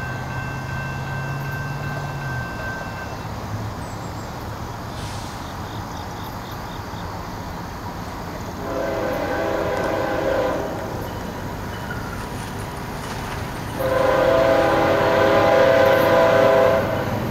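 Locomotive air horn, a second-generation Nathan K5HL five-chime, sounding twice: a blast of about two seconds, then a louder one of about three seconds. Steady rail noise runs underneath.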